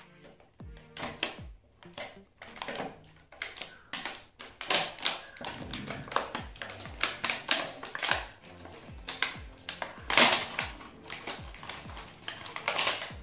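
Clear plastic blister packaging of a toy car crackling and clicking in irregular bursts as it is handled and pried open, over background music with a steady low beat.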